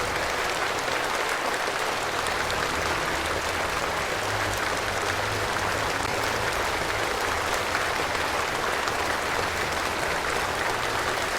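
Large audience in a hall applauding steadily.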